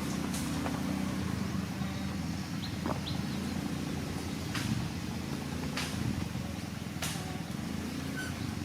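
Diesel engine of heavy earthmoving machinery running steadily at low revs, with a few sharp clicks over it.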